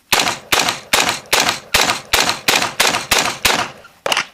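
AR-15 carbine fired in a rapid string: about ten sharp shots in an even rhythm of roughly two and a half a second.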